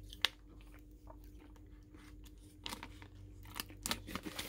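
A person crunching and chewing a SweetTarts Chewy Fusions candy, a piece with a crunchy outside and a chewy centre: one sharp crunch about a quarter second in, then quieter, scattered chewing crackles that pick up again near the end.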